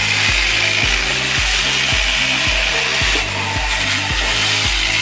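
A small electric chainsaw running steadily and cutting into a wooden log, its chain rasping through the wood with a brief dip a little past three seconds in.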